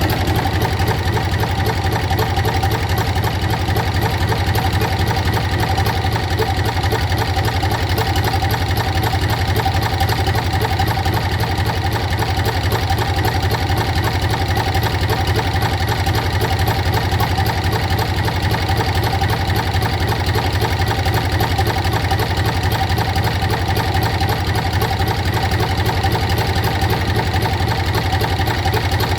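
Dorman 3LB three-cylinder diesel engine running steadily with a rapid, even beat, on its first test run after a major overhaul and conversion to marine specification.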